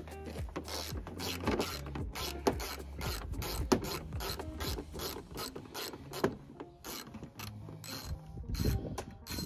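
Hand ratchet with an extension and Torx 30 bit clicking in short runs as it undoes a headlight mounting screw.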